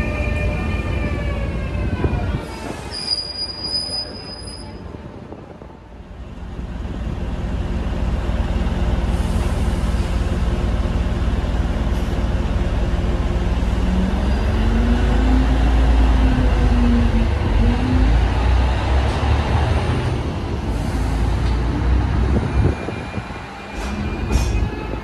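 DSB IC3 (Litra MF) diesel multiple unit running through the station with a deep diesel rumble, its engine note rising a little past the middle. It opens briefly with the falling whine of an electric train slowing.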